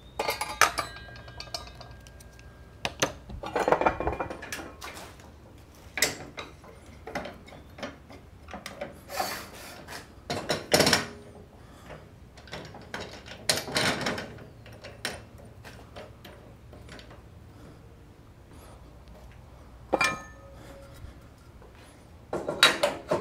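Metal lathe parts of a 1954 Shopsmith Mark V being handled and fitted onto the machine: scattered clanks, knocks and scrapes, with short metallic ringing near the start and again about 20 seconds in.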